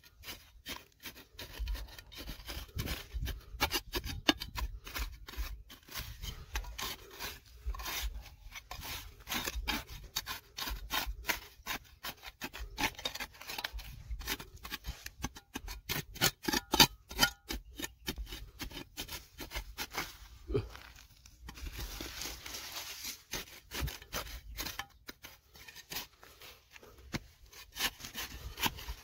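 A hand tool scraping and chipping at stone and soil: rapid, irregular scrapes and clicks, with a longer, smoother scrape about three-quarters of the way through.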